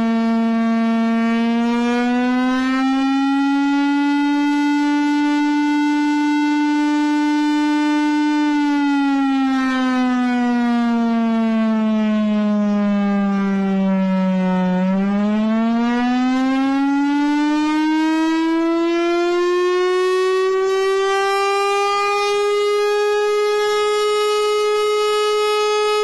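A loud, steady siren-like tone with rich overtones. It rises slightly, holds, then falls slowly for about six seconds to its lowest pitch past the middle, and climbs smoothly to its highest pitch near the end.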